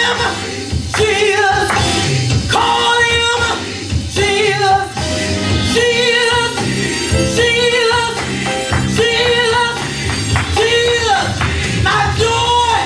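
A woman singing a gospel solo through a handheld microphone, held phrases with vibrato, over instrumental accompaniment.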